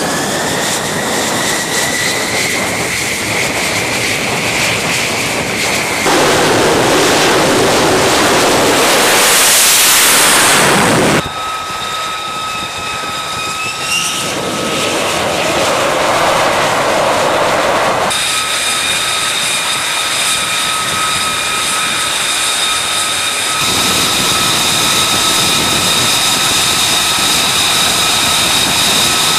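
F-35 fighter jets' Pratt & Whitney F135 turbofan engines running on a carrier flight deck. A high, steady turbine whine is broken about six seconds in by a much louder rushing roar of a jet close by, which cuts off suddenly near the middle. After that comes the steadier whistling whine of a jet taxiing at low power.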